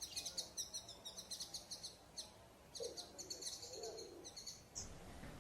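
Greater Antillean grackle calling: rapid runs of high, repeated notes in two bouts, with a short pause about two seconds in.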